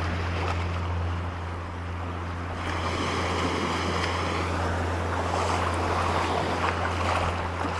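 Waves washing across a shallow coral reef flat, with wind on the microphone: a steady rushing noise over a constant low rumble.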